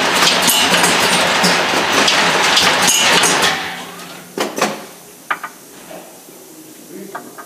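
Filling, capping and labelling monoblock running: a dense mechanical clatter full of small clicks and clinks that dies away about three and a half seconds in, followed by a few separate knocks.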